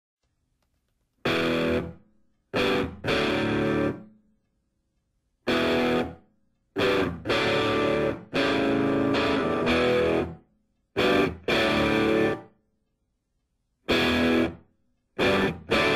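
Music: distorted electric guitar playing loud chords in short stop-start stabs, each cut off into complete silence, starting about a second in.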